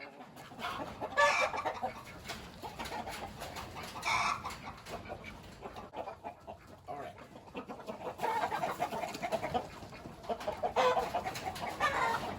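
Chickens clucking, with short runs of calls about a second in and about four seconds in, then more busily from about eight seconds on.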